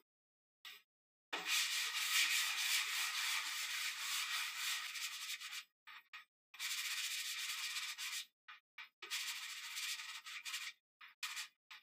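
Hand sanding block rubbed back and forth along the edge of a wooden panel, a dry scratchy hiss in three long spells of strokes with short pauses between, then a few short strokes near the end.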